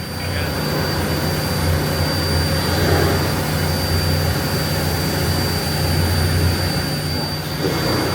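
Boat engine running with a steady low drone that stops about seven seconds in, with a thin steady high whine above it.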